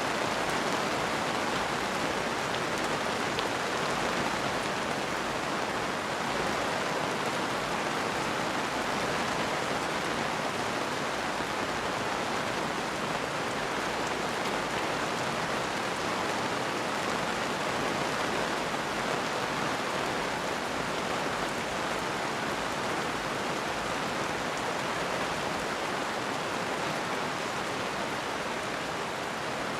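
Steady rain falling, an even hiss with no thunder claps.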